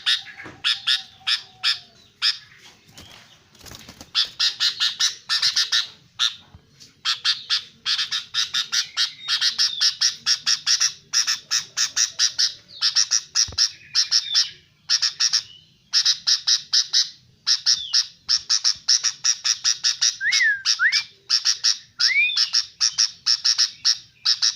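Albino sooty-headed bulbul calling noisily: fast runs of sharp chattering notes in repeated bursts, with a few short whistled notes that glide in pitch.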